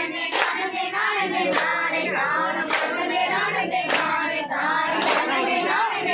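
Women singing a Tamil kummi folk song together, clapping their hands in time about once a second.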